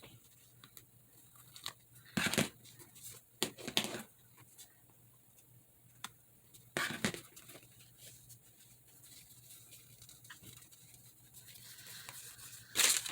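Paper being handled on a craft table: a few short rustles with small taps and clicks in between.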